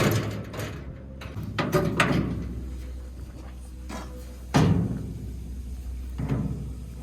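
Hammer blows on a hammer-type cable crimper, crimping a lug onto a heavy welding or battery cable: four separate heavy knocks, the loudest about four and a half seconds in.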